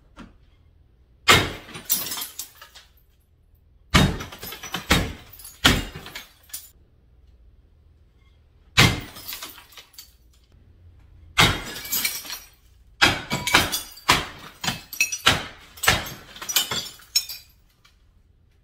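Baseball bat smashing a wall mirror: a series of loud blows, each followed by shattering and tinkling glass. Separate strikes come every few seconds at first, then a fast run of blows near the end.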